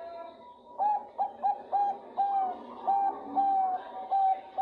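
Female Bangkok zebra dove (perkutut) calling to a male: a quick, slightly uneven run of about nine short coos, the last drawn out and falling slightly in pitch.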